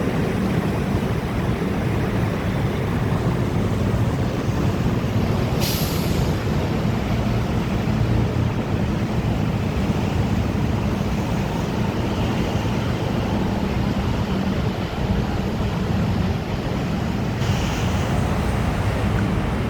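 Electric commuter train running, a steady low rumble, with two short hisses, one about six seconds in and one near the end.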